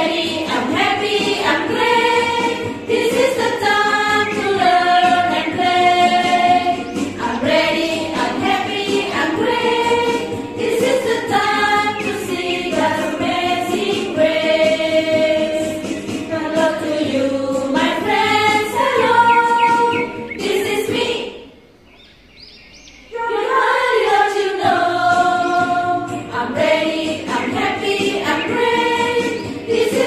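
A group of women singing a children's action song together over backing music, the singing dropping out briefly about two-thirds of the way through.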